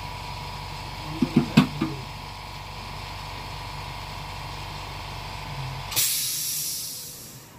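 Hot-air rework station running with a steady hum and whine, with a few short knocks a little over a second in. The hum cuts off about six seconds in, as a rush of hissing air rises and fades away.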